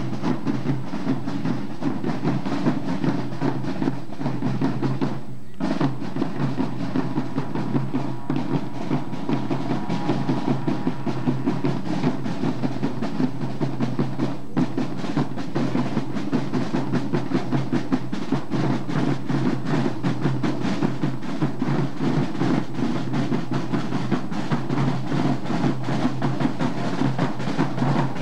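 Pipe band marching and playing: bagpipes sounding a tune over their steady drone, with snare and tenor drums beating throughout. The sound drops out briefly about five seconds in.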